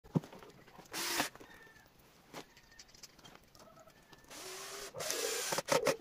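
A cordless drill run in short bursts against the end of a log: once briefly about a second in, and for about a second and a half near the end. Birds cooing between and after.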